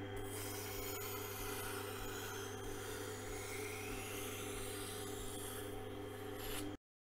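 Tormek wet grinder running with a steady motor hum while a kitchen knife held in a jig is worked along its grinding wheel, a faint scraping rasp. The sound cuts off suddenly near the end.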